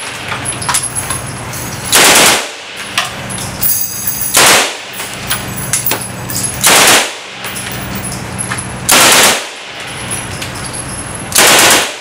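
Mini Uzi 9mm machine pistol firing full-auto in five short bursts, each about half a second long and roughly two seconds apart.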